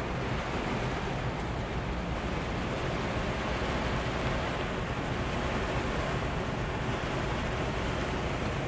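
Heavy rain pouring steadily on a semi-truck's cab and windshield, with a low rumble from the truck's engine underneath.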